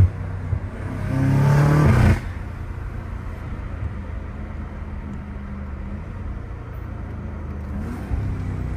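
BMW M5 Competition's twin-turbo V8, fitted with aftermarket cold air intakes, pulling hard about a second in with a rising engine note and loud intake hiss, then cut off abruptly as the throttle is lifted, leaving a steady low engine drone. A brief knock right at the start.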